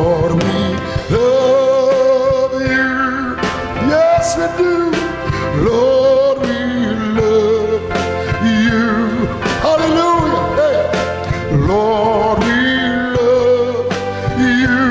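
Electronic keyboard playing a slow gospel hymn, with a man singing along in long, wavering held notes.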